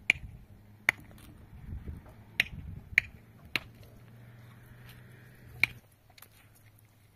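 About six sharp clicks or knocks at uneven intervals, the last about five and a half seconds in.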